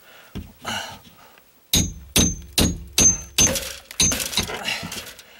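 Hammer striking a steel nail puller again and again, driving it under nails in OSB plywood to pull them out. A run of sharp blows, about two a second, starts a little under two seconds in, several with a short metallic ring.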